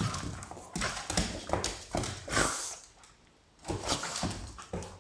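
Smooth fox terriers and a Pugalier play-fighting at close quarters: a string of short, irregular dog vocal noises and scuffles, broken by a pause of about a second just past the middle.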